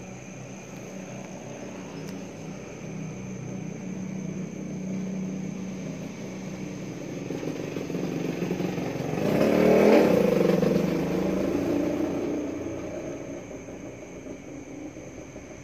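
A motor vehicle engine passing by, growing louder to a peak about ten seconds in and then fading away.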